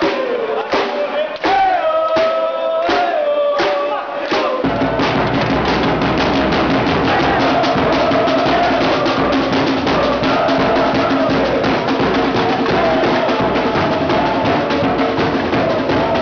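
Football supporters chanting together, with a few separate drum hits. About four and a half seconds in, their drum section comes in with fast, continuous beating under the chant.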